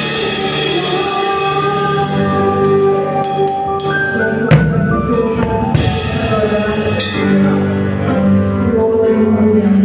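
Drum kit played along with a backing song of held, pitched tones. There is a cluster of sharp hits in the middle, the loudest about four and a half seconds in.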